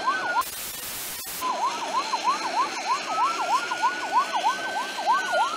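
Airport fire trucks' sirens: a fast yelp sweeping about four times a second, overlapping a slower wail that rises and then falls near the end. About half a second in, the sirens drop out for a second under a rush of hiss, then come back.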